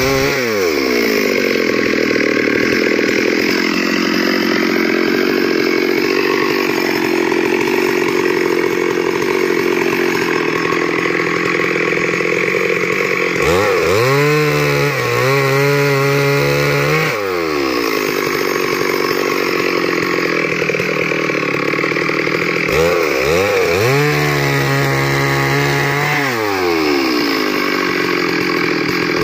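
Petrol chainsaw cutting lengthwise through a wooden slab, the engine pulling down to a lower note under load. Twice it revs up higher as the bar comes free between cuts, then drops back into the wood.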